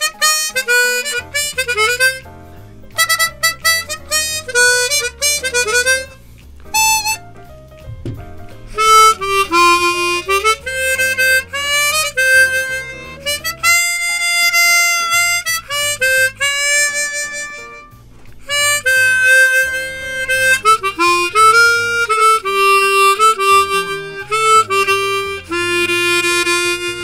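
Hohner Discovery 48 chromatic harmonica being played: quick runs of short notes, then a slower melody of held notes with small dips in pitch where ornamental bends are tried. The player hears its tone as grainy and airy and finds that the bends barely respond, which he puts down to air leaking at its plastic mouthpiece.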